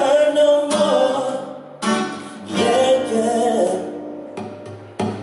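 Acoustic guitar strumming, with a man singing long drawn-out notes that bend in pitch and carry no clear words, in a live acoustic song.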